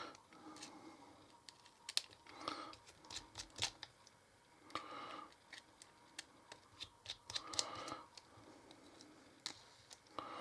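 Faint, irregular clicks and taps of small knife parts being handled during disassembly of a folding knife with an axis lock: scales, pins and screws knocking together. A few short soft scraping sounds come between the clicks.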